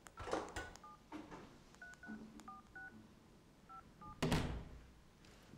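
Telephone keypad tones of a number being dialled: about nine short beeps at uneven intervals. About four seconds in comes a loud thud.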